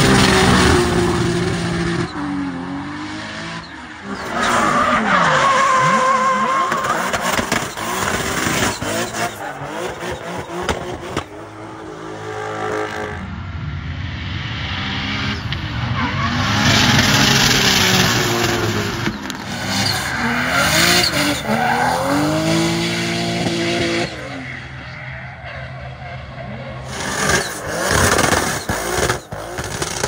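Nissan S13 drift car's RB25DET turbocharged straight-six revving hard, its pitch repeatedly rising and falling, with tyres squealing as the car slides sideways. Several short drift passes cut one after another.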